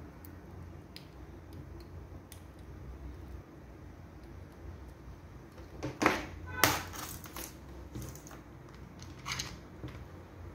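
Handling noise from hands working on a small RC car's wiring and chassis: a few faint clicks, then a cluster of loud rustling, scraping sounds a little past halfway and two smaller ones later, over a low steady hum.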